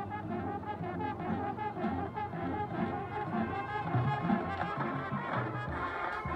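Marching band playing, with the brass section to the fore: trombones and trumpets holding notes over moving low brass.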